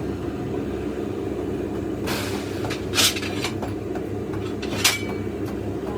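Steady low mechanical hum with three sharp clanks, about two, three and five seconds in; the last leaves a brief metallic ring.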